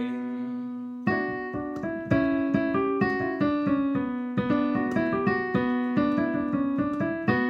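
Piano playing an instrumental passage: a held chord fades, then from about a second in, notes are struck in a steady run of about four a second over a sustained low note.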